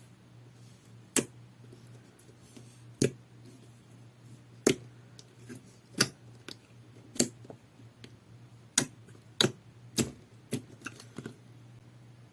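Clear soothing-gel slime being pressed and played with, giving about ten sharp wet pops, one every second or two and coming closer together near the end.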